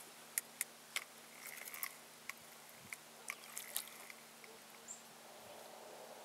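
A dozen or so sharp clicks and light taps at irregular spacing, bunched in the first four seconds, over a faint steady low hum.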